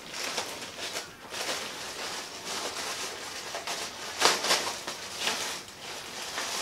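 Clear plastic bag crinkling and rustling as a car speaker is worked out of it by hand, in irregular crackles with a louder burst about four seconds in.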